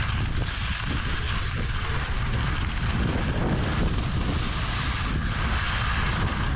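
Wind buffeting a ski camera's microphone at about 38 km/h, a steady low rumble, with the hiss of skis running over packed snow.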